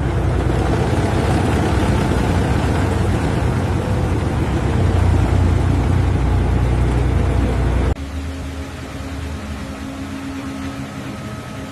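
A heavy engine running steadily and loud; about eight seconds in it cuts off abruptly to a quieter, steady engine hum.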